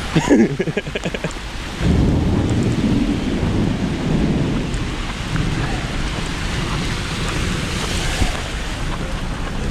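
Heavy rain pouring, with a low rumble of thunder that starts suddenly about two seconds in and rolls on, slowly fading.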